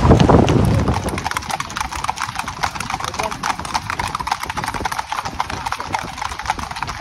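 Shod hooves of several cob horses clip-clopping on the road at a trot as they pull light carts, a dense, overlapping patter of strikes. A low traffic rumble underlies it for about the first second.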